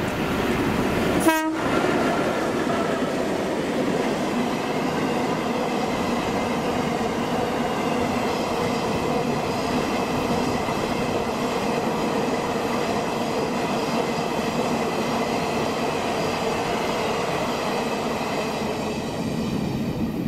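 Two EMD B class streamliner diesel locomotives, each with a 16-cylinder 567 engine, pass close by hauling a long train of quarry hopper wagons, with a brief loud blip about a second in. The engine noise then gives way to the steady rumbling and clacking of the passing wagons, with a steady high ringing tone over it in the second half.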